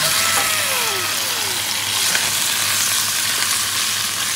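Salmon heads and pieces sizzling steadily in hot oil in a pan with chopped onion as they are turned with a spatula.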